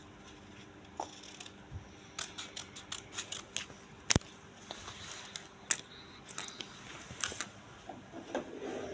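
A series of irregular sharp clicks and ticks, thickest from about two to four seconds in, with one louder click about four seconds in, over a faint steady hum.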